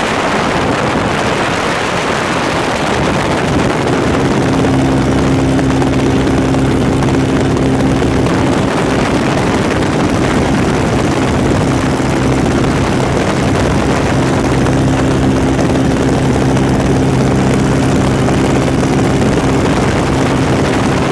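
Light aircraft's propeller engine running steadily in cruising flight, heard from inside the cabin under heavy wind noise from the open door and window. The engine's steady hum stands out more clearly from about four seconds in.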